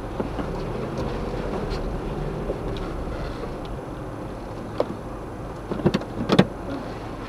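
Inside a car's cabin, as picked up by the dashcam's microphone: a steady low rumble of the car rolling slowly, with a few sharp knocks and clicks about six seconds in, the loudest sound.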